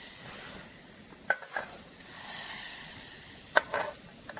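Butter sizzling in a hot cooking pan, with a few sharp clinks and scrapes of a utensil stirring against the pan.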